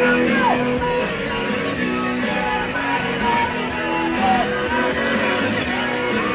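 Rock music with guitar playing.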